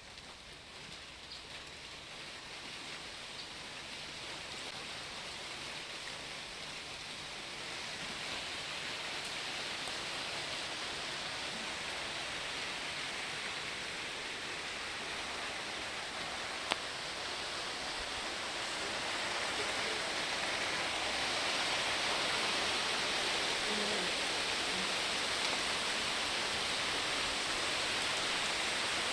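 A steady hiss like rain or rushing water that grows gradually louder, with one sharp click about seventeen seconds in.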